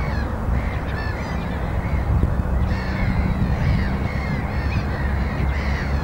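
A flock of gulls calling, many short overlapping cries, from birds circling overhead and resting on the river. A steady low rumble runs underneath.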